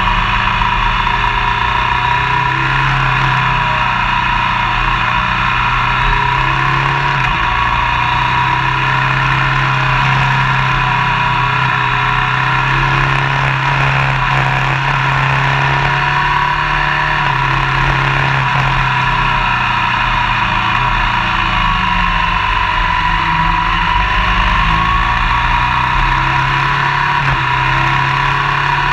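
Motorcycle engine running steadily at road speed, with wind and road noise. The engine note shifts a few times.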